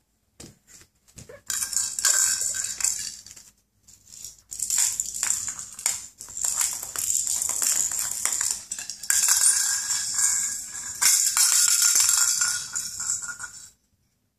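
A baby's handheld toy rattle being shaken and knocked against a tile floor, making a dense, loud rattling. It starts about a second and a half in, breaks off briefly, then carries on until just before the end.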